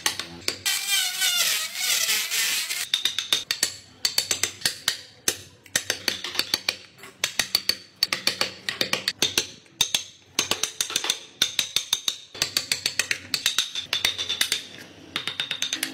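Hand carving of wood with a gouge: quick runs of sharp taps as the tool is driven into the wood and chips break away, in bursts with short pauses between.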